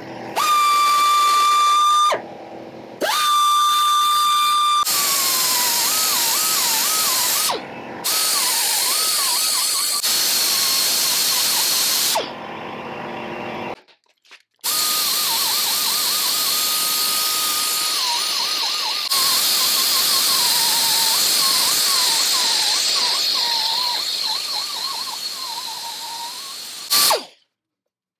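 Die grinder with a conical burr grinding a brazed repair on a cast iron casting: a steady high whine run in bursts, stopping briefly several times. Once it is working the metal its pitch keeps dipping and recovering as the burr bites and the motor slows under load, and it shuts off near the end.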